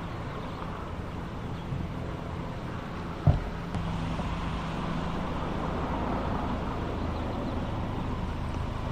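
Steady outdoor background noise with a low hum, and one sharp thump about three seconds in.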